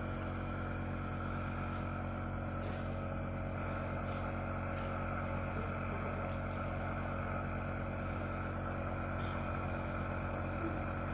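A small motor running with a steady, unchanging hum.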